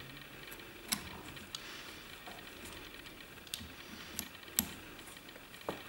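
Fly-tying bobbin and thread being wrapped around a hook shank in a vise: a quiet, irregular scatter of light ticks and clicks, about half a dozen in all.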